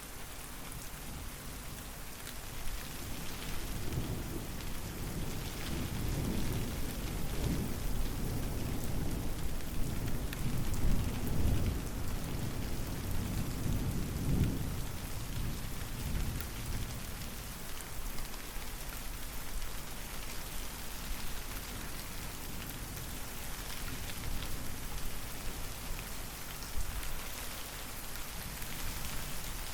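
Steady rain falling, with a long low rumble of thunder that builds from about three seconds in, is loudest near the middle and fades away by about sixteen seconds; rain alone after that.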